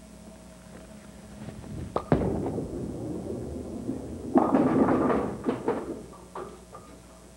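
A bowling ball released onto a wooden lane with a sharp thud about two seconds in, then rolling with a low rumble. A little over four seconds in it hits the pins with a loud clatter, and a few pins go on rattling and clicking as they settle.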